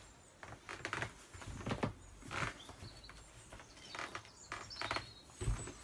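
Soft rustles and light knocks of a person moving and handling the clothes she is wearing, with faint bird chirps in the background.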